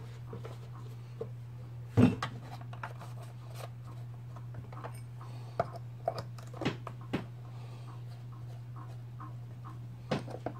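Scattered clicks and knocks of a hand tool and the chainsaw's plastic housing being handled on a workbench, with one sharp knock about two seconds in, over a steady low hum.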